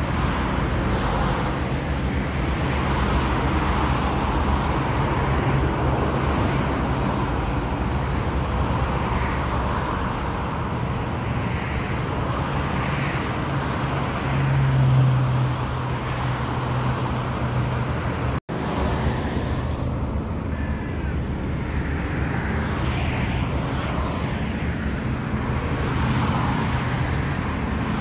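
Outdoor urban ambience: a steady low engine drone over a wash of traffic noise. It swells louder briefly about halfway through and cuts out for an instant about two-thirds of the way in.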